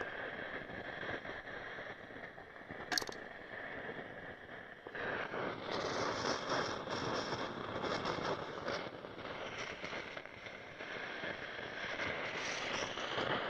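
Loudspeaker driven by a Chinese car amplifier with no input signal, giving off a steady crackling hiss with a sharp click about three seconds in. It crackles louder from about five seconds on. The noise is a fault in the amplifier.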